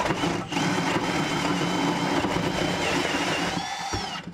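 A hole saw on a cordless drill cuts a round vent hole through the back of a cabinet and the wall behind it. It runs steadily with a constant high whine, changes pitch and stops near the end.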